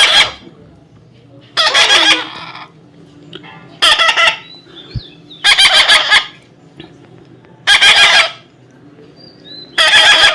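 Young parrot giving a series of loud, harsh screeches, about one every two seconds.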